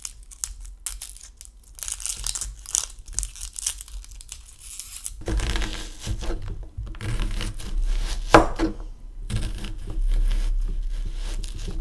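Dry onion skin crackling and tearing as an onion is peeled by hand, then from about five seconds in a chef's knife slicing through the onion and knocking on the cutting board.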